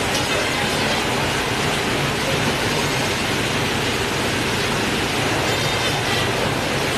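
Shipboard fish-processing machinery and plastic conveyor belts running: a steady, unbroken mechanical din with a low hum underneath and a wash of noise like running water.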